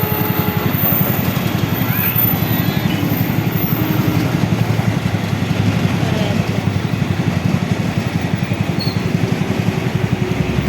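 A loud, steady vehicle rumble with a fast, even pulsing, about five beats a second, running throughout.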